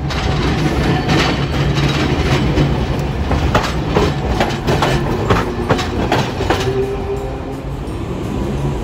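Hiroden 700-series streetcar rolling past close by, its wheels clacking over rail joints and the junction crossings in a quick run of sharp clicks over a steady rumble. The clicks thin out after about seven seconds as the car moves away.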